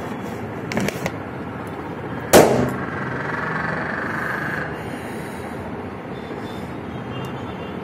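A large inflated rubber balloon squeezed between the hands until it bursts with a single loud pop about two seconds in. A few faint clicks come just before it.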